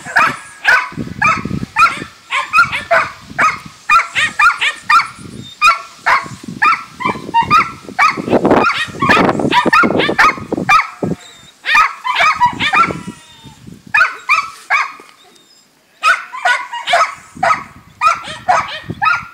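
A puppy yips and whines rapidly and excitedly as it greets its owner. The calls stop for about two seconds late on, then start again.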